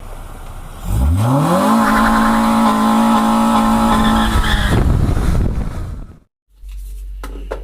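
A motor or engine spins up, its pitch rising over about a second, holds one steady high note for about three seconds, then dies away. A low hum follows near the end.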